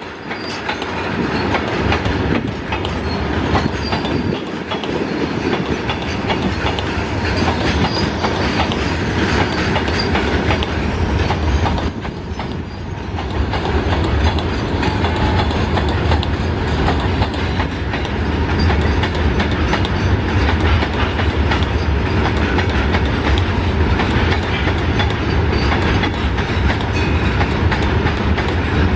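Loaded freight train running past, wheels clicking over the rail joints over a steady low rumble. The sound builds over the first couple of seconds, then holds.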